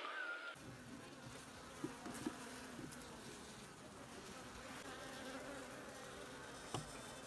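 Honeybees buzzing faintly and steadily at the hive, starting about half a second in, with a few faint knocks.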